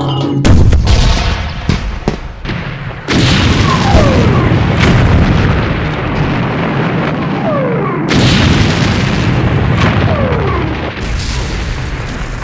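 Artillery barrage: repeated cannon booms and shell explosions over a continuous rumble, with a few short falling shell whistles between the blasts.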